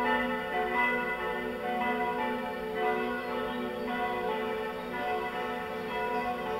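Several church bells swinging and ringing together in a bell tower, their strikes overlapping irregularly over a continuous blend of ringing tones.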